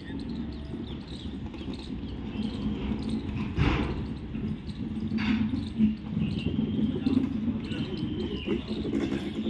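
LHB passenger coaches rolling slowly past on their bogies: a steady low rumble of wheels on rail, with a sharp knock about three and a half seconds in. Faint high-pitched squeals sound now and then, most plainly near the end.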